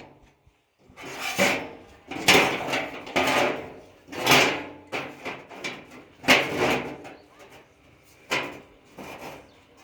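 A door latch or bolt being worked over and over, giving a series of separate sliding clacks about once a second.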